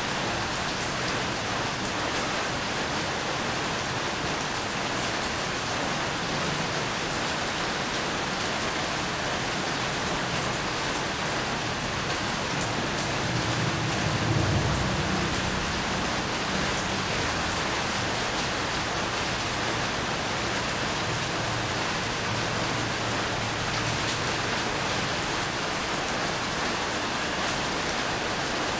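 Steady rain falling, with scattered sharp drop hits close by. A low rumble swells and fades about halfway through.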